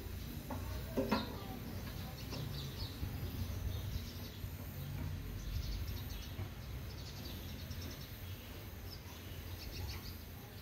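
Small handheld gas torch flame burning steadily with a low rumble. Birds chirp now and then, and there is a single light tap about a second in.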